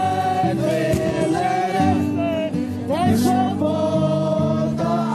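A song playing: singing over held instrumental notes, at a steady, loud level.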